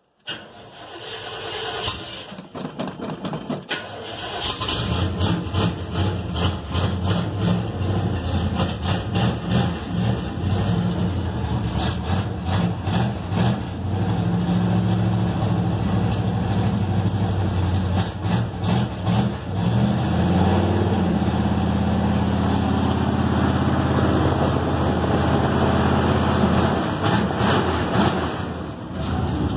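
1978 Suburban engine with open (uncapped) exhaust headers, cold-started: the starter cranks for a few seconds, the engine catches about four seconds in, runs loud and uneven at first, then settles into a steadier idle.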